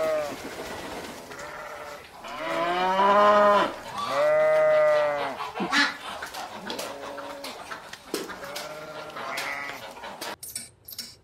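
A series of about six long, mooing calls, each rising and then falling in pitch, the middle two the loudest. Near the end the sound drops off suddenly and a few sharp clicks follow.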